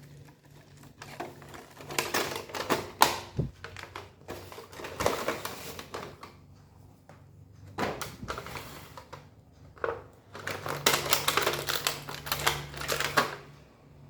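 Bursts of quick clicks and rustling from an action camera, its accessories and packaging being handled during unboxing, in several bouts with short pauses, the longest and busiest near the end.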